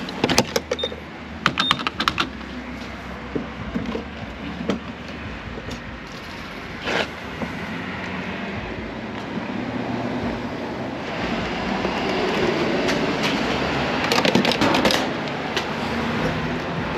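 Vehicle running and road noise, a steady rumble that grows louder about two-thirds of the way in, with bursts of clicks and rattles near the start and again near the end.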